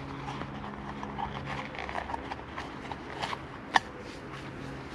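Small wood fire crackling in the stove under the kettle, with irregular light crackles and one sharp snap about three-quarters of the way through.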